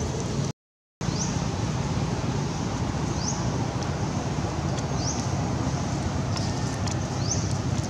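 Steady low outdoor rumble of background noise, with a bird's short high chirp repeating about every two seconds, four times. The sound cuts out completely for about half a second near the start.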